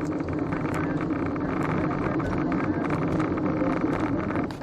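A car driving, with steady engine and road noise. It drops off abruptly near the end.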